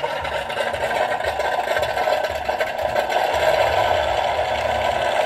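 A steady, rattling mechanical drone, growing slightly louder.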